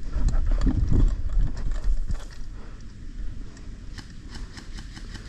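Footsteps and gear rustling of a player moving on foot, with a low rumble of handling noise on the body-worn microphone that is loud for the first two seconds and then eases, and scattered light clicks throughout.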